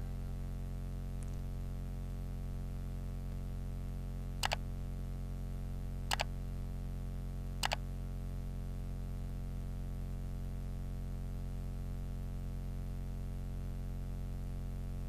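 Steady low electrical hum on the old Super 8 film soundtrack, with three sharp clicks about a second and a half apart, the click effects of an on-screen like, subscribe and bell animation.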